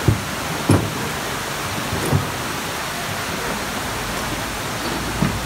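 Waterfall plunging into a gorge pool: a steady, even rushing of falling water. A few short knocks sound over it, the loudest about a second in.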